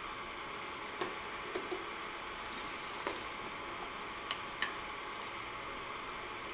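A handful of light, scattered ticks and taps as pumpkin seeds are spooned into a pot of simmering herbal drink, over a steady low hiss.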